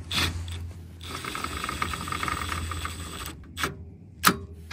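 A small motor-driven mechanism runs steadily for about two seconds with a fast, fine rattle, then stops. A couple of sharp clicks follow.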